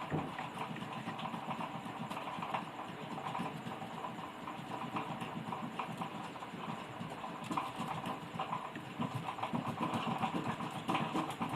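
Soldering iron and desoldering wick working on circuit-board joints: faint, irregular ticking and scratching as solder is drawn out of the through-holes.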